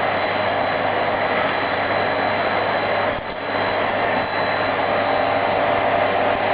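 Vacuum cleaner running steadily: an even rushing noise with a thin high whine, dipping briefly about halfway through.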